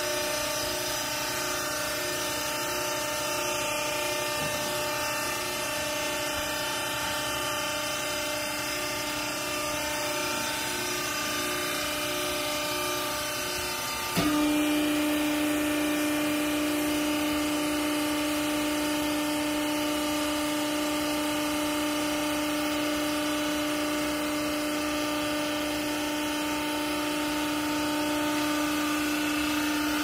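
Vertical hydraulic rag baler's motor and pump running with a steady hum. About halfway through there is a click and the hum steps up to a louder, steadier tone.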